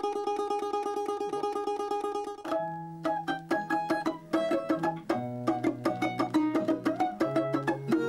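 Balalaika played fast: rapid tremolo strumming on one held chord, then about two and a half seconds in an abrupt switch to a quick run of plucked melody notes jumping up and down in pitch.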